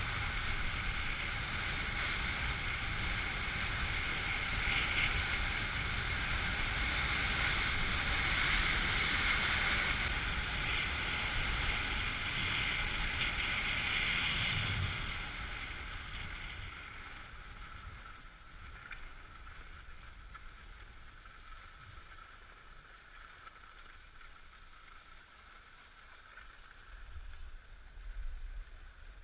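Skis hissing and scraping over groomed corduroy snow at speed, with wind on the microphone. About halfway through the sound fades to a much quieter hiss.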